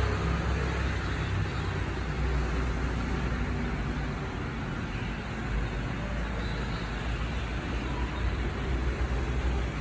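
Rear-loading garbage truck's engine running, a steady low rumble with street traffic noise around it.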